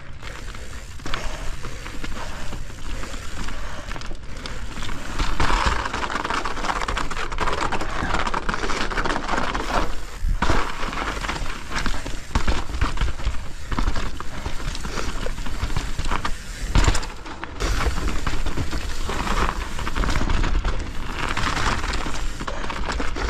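Mountain bike riding down a snowy trail: tyres hissing and crunching through snow, with the bike rattling and knocking over rough ground. A steady low rumble of wind runs on the microphone throughout.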